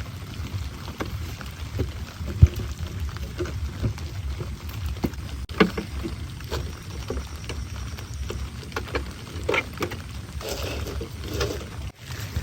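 Heavy rain falling, with many scattered drips and splashes over a steady low rumble.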